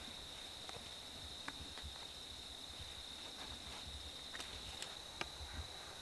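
Insects singing in one steady, high-pitched, unbroken tone, with a few faint ticks.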